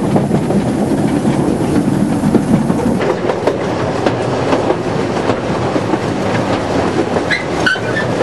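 Two-foot narrow-gauge passenger train running along the track, heard from aboard an open carriage: a steady rumble with the clickety-clack of wheels over rail joints.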